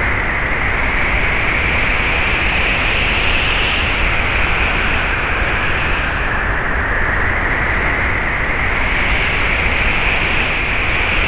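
Strong wind blowing steadily against a parked truck, a continuous rushing hiss with a low rumble underneath.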